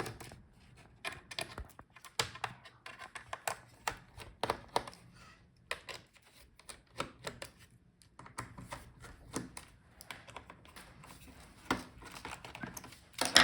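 Irregular small clicks and taps of a screwdriver working the bottom-case screws of a laptop, metal bit on small screws and plastic case.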